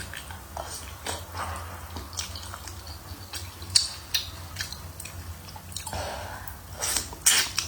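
Close-up chewing of hotpot food, with wet mouth clicks and squelches; the loudest clicks come near the end, under a steady low hum.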